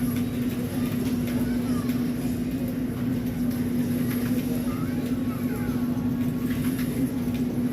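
Steady mechanical hum and low rumble with one constant droning tone, unchanging in level.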